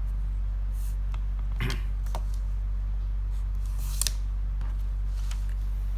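Pen tip scratching faintly on paper as numbers are written, over a steady low hum. About four seconds in there is one brief, sharper scrape as an object is moved on the desk.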